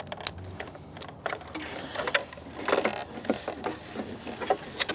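Hand-handling noises from a tail light assembly and its wiring being worked into place: scattered sharp plastic clicks with light rustling, busiest in the second half.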